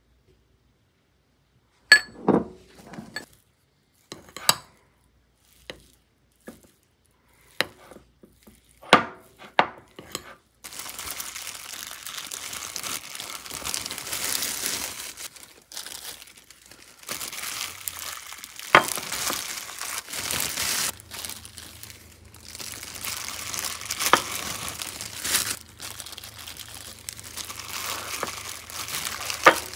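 A metal spoon knocks sharply against a ceramic bowl a number of times as seasoned rice is mixed. From about ten seconds in, a thin disposable plastic glove crinkles steadily as the rice is squeezed and shaped into rice balls.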